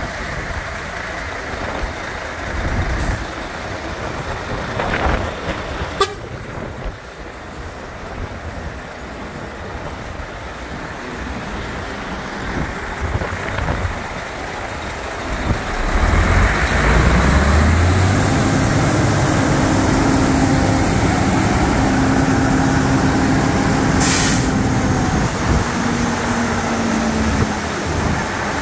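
Mercedes-Benz 4031 dump truck's diesel engine running while the tipper body is raised hydraulically. About halfway through it gets louder and a steady hum and whine set in as the engine and hydraulic pump take the tipping load. A short hiss of air comes near the end.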